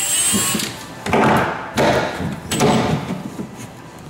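Cordless impact driver running in about four short bursts, loosening the bolts that hold the pickup bed to the frame.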